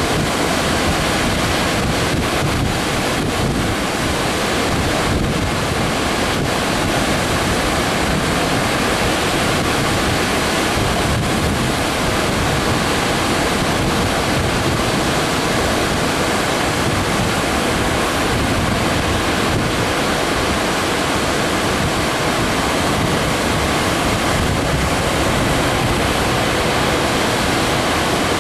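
Water pouring over a lowhead dam and churning in the recirculating hydraulic at its foot: a loud, steady rush with no letup.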